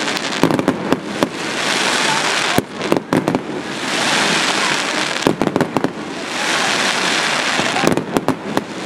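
Fireworks display: clusters of quick sharp bangs from rising comets and bursting shells, about every two and a half seconds, each followed by a hiss that swells and fades as the glittering stars burn out.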